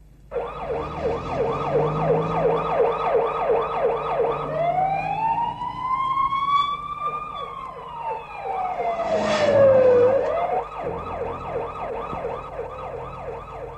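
Police sirens: a fast repeating yelp of about four sweeps a second, joined by a second siren that slowly rises and then falls away over several seconds. A brief loud rush of noise comes about nine and a half seconds in.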